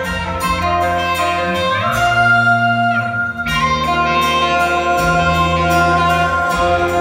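Live rock band and orchestra playing an instrumental passage: electric guitar with strings and bass under it. A held lead note slides up about two seconds in and falls back near three seconds.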